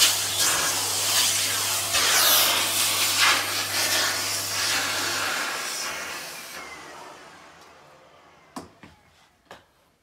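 Vacuum cleaner running, its round dusting-brush nozzle sucking across a glossy shelf top. About five seconds in the motor's hum cuts out and the suction winds down over a few seconds with a faint falling whine, as when the cleaner is switched off. A few light clicks come near the end.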